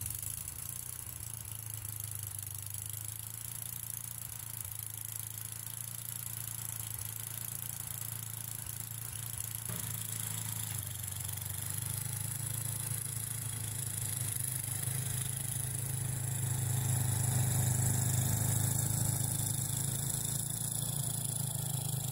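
Troy-Bilt snowblower's engine running steadily, getting louder over the last several seconds as the machine comes closer.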